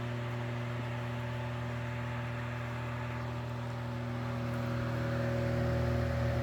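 Sears Kenmore 12-inch table fan by Knapp-Monarch running on high: its shaded-pole motor gives a steady hum, louder than the wind whirring through the fan blades. The hum swells a little in the second half.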